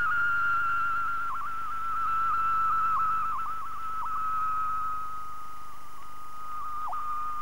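A single high, theremin-like electronic tone held throughout, sinking slowly in pitch, with brief downward blips every second or so.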